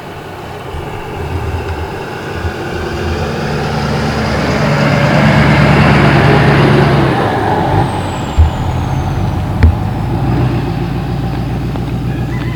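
A motor vehicle's engine and tyre noise building to a peak near the middle as it passes close by, then easing off. Two sharp knocks come near the end.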